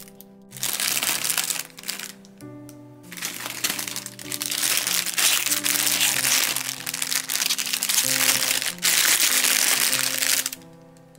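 Bakery packaging crinkling and rustling as bread and pastries are handled and unwrapped, in two long stretches, over background music with held notes.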